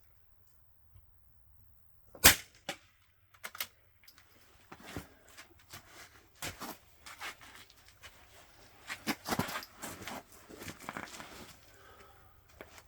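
A single .22 LR rifle shot about two seconds in, followed by a few sharp clicks and then several seconds of irregular clicking and rustling as the rifle and gear are handled.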